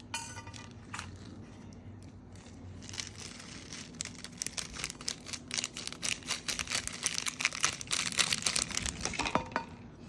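Small plastic bag crinkling as it is handled and opened, a dense run of fine crackles from about three seconds in until near the end.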